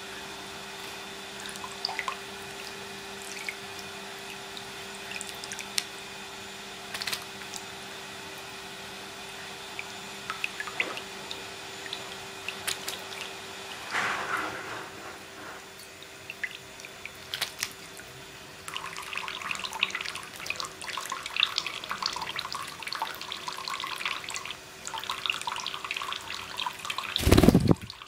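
A thin stream of tap water trickling into a bathroom sink where a peach-faced lovebird is bathing, with scattered small splashes and drips over a steady low hum. About two-thirds through, the water starts spattering more densely, and a short loud thump comes near the end.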